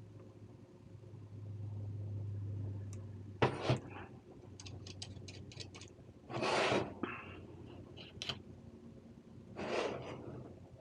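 Handling noise as a dovetail optic plate is fitted to a Glock slide. About three and a half seconds in there is a sharp knock. A quick run of light metal clicks follows, then two longer rasping scrapes.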